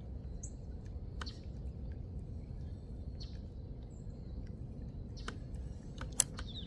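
Outdoor pond-side ambience: a steady low rumble with a few short, high bird chirps. Several sharp clicks punctuate it, the loudest just after six seconds in.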